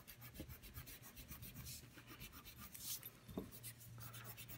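Rubber eraser scrubbed rapidly back and forth on paper, rubbing out pencil lines: a faint run of quick, even scratchy strokes.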